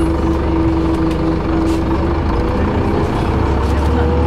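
City bus heard from inside the cabin while moving: a steady engine and drivetrain drone with a whine over a low rumble.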